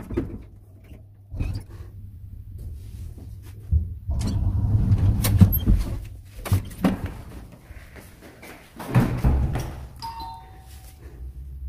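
A string of knocks and clunks over low rumbling handling noise, busiest in the middle, with a brief falling two-note tone near the end.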